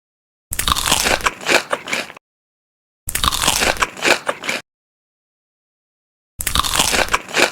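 Crunchy bites into crispy chicken, with close-up crunching and chewing. There are three bursts of about a second and a half each, separated by dead silence.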